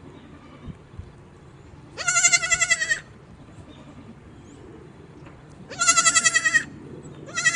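Young goat bleating: three high, quavering bleats of about a second each, the last beginning near the end.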